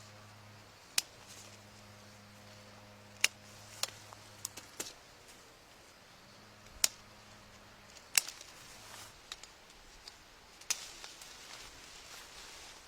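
About eight sharp, isolated clicks at irregular intervals over a faint steady low hum.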